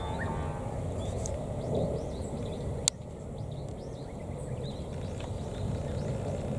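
Small birds chirping faintly over a steady low rumble of background noise, with one sharp click about three seconds in, after which the background drops slightly.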